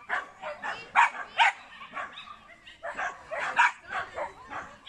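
A dog barking repeatedly: short, sharp barks, about two or three a second, in an uneven run.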